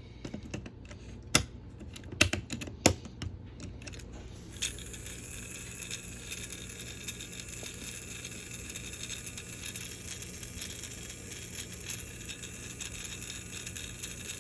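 A run of sharp clicks and knocks from a plastic toy being handled while its batteries go in. Then, from about four and a half seconds in, the small electric motor of a battery-powered Thomas the Tank Engine toy runs with a steady whir.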